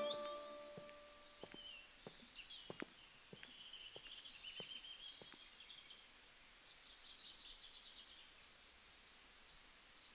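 Faint birdsong: scattered high chirps and twitters over a quiet outdoor background, with a few faint clicks in the first few seconds.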